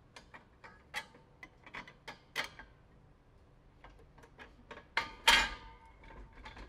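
Metal hold-down crossbar being fitted across the collars of two propane cylinders: a run of light metallic clicks and taps, with one louder clank that rings briefly about five seconds in.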